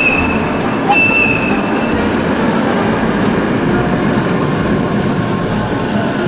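Tram running on rails, rumbling and clattering steadily. Two short high squeals come near the start and about a second in.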